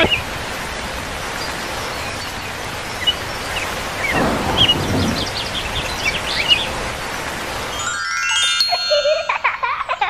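Steady rain sound effect with a few bird chirps over it; about eight seconds in, a rising run of chime-like notes comes in as music starts.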